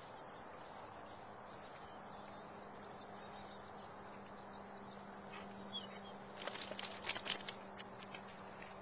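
Quiet outdoor background with a faint steady low hum. A quick cluster of sharp clicks and taps comes about six and a half seconds in, lasting about a second.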